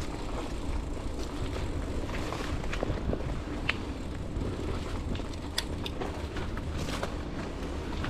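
Mountain bike rolling along a dirt singletrack trail: a steady low rumble from the ride, with scattered small clicks and rattles.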